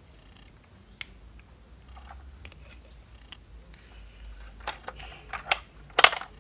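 Light clicks and taps of small plastic Playmobil pieces being handled, scattered at first, then a quick run of sharper clicks in the last second and a half, the loudest near the end.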